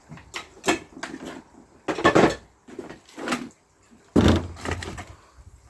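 A handful of knocks, bumps and scrapes from handling a sand-casting flask and bucket, the loudest about two seconds in and a heavier thump about four seconds in.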